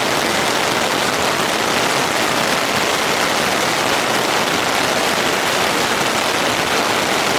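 Rain pattering steadily on a Big Agnes tent's rain fly, heard from inside the tent.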